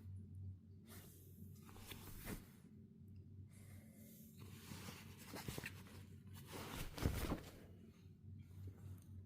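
Faint, irregular rustling and scratching, with a louder rustle about seven seconds in, over a low steady hum.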